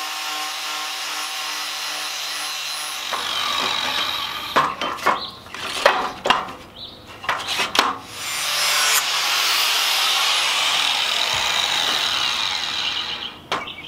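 Angle grinder with a flap disc grinding the edge of a steel lawn mower blade: a steady grinding hiss for about four seconds. Then a few seconds of knocks and clatter as the blade is handled in its clamp, and a second steady stretch of grinding that stops just before the end.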